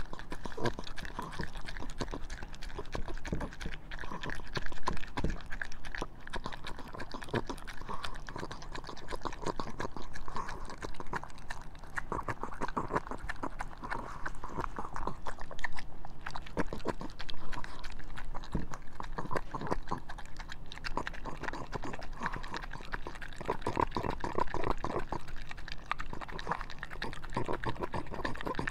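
French bulldog eating raw ground beef, organ meat and tripe from a bowl: steady chewing and licking, with short smacks and clicks several times a second.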